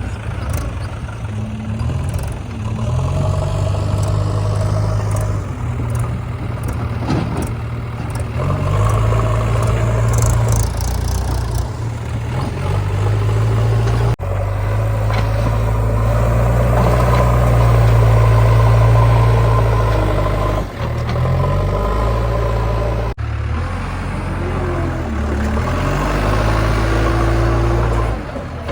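Heavy diesel engine running, its speed stepping up and down under load while mud is loaded. The sound breaks off abruptly and resumes twice, about 14 and 23 seconds in.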